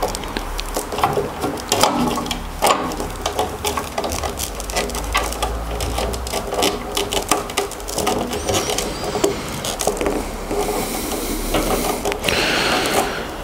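Ribbed flexible dust-extraction hose being twisted and forced onto the plastic outlet of a table saw's blade guard: plastic rubbing and creaking with a rapid run of small clicks from the hose ribs, the hose a very tight fit.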